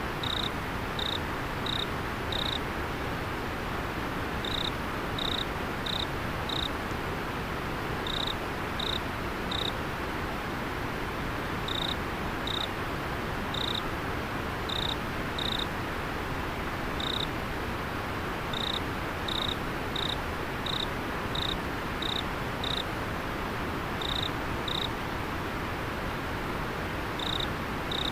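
A cricket chirping in short, clear, high notes, a few at a time with pauses between, over the steady rush of a flowing river.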